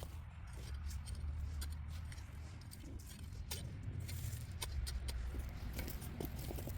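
Hand work in garden soil during a potato harvest: scattered light clicks and scrapes over a steady low rumble.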